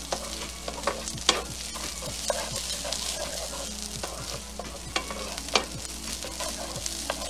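Arborio rice sizzling in olive oil in a frying pan while a spoon stirs it, with scattered clicks and scrapes of the spoon against the pan. The raw grains are being toasted and coated in oil, the step before broth is added to a risotto.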